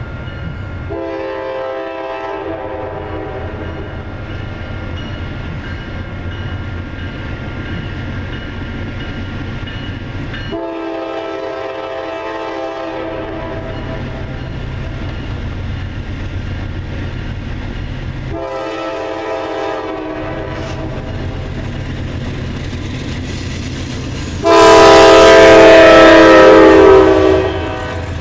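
Nathan K5LA five-chime air horn on a GE Dash 9-44CW diesel locomotive sounding the grade-crossing signal: two long blasts, a short one, then a final long blast near the end that is much louder as the locomotive comes close. A steady low diesel rumble runs beneath.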